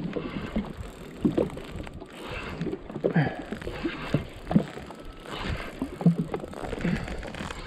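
Small waves slapping and lapping against the hull of a drifting jet ski, an irregular run of short knocks and splashes over a low wash of water and light wind.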